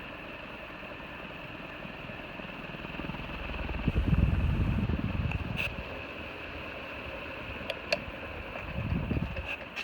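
Dayton Lasko ceiling fan running on its third speed, a steady motor hum, its bearings lubricated and freed up. Two swells of low rumble come about four seconds in and near the end, with a few faint clicks.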